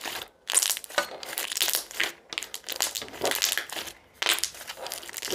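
Loose thick-and-glossy slime being squeezed, pressed and folded by hand, crackling and popping in repeated bursts with brief pauses about half a second in and about four seconds in.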